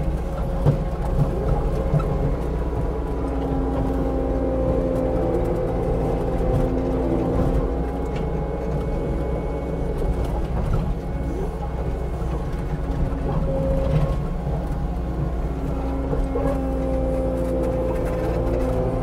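Diesel engine of a compact tracked Caterpillar machine running steadily under working load, with a whine that bends up and down in pitch now and then.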